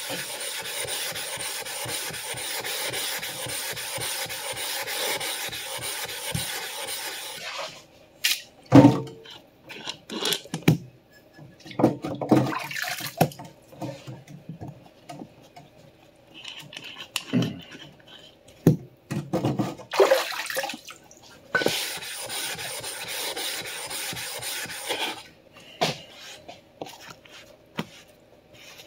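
Water running steadily for several seconds, then stops; a series of hard clunks and knocks follows as whetstones are lifted out of and set into a metal stone holder. Water runs again for a few seconds, then more knocks from the stones.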